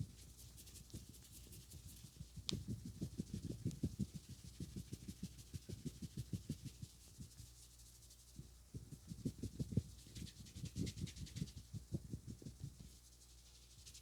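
Hands rapidly tapping and patting during a head massage, in quick runs of soft thumps with a pause in between, over the rustle of palms rubbing on hair and skin.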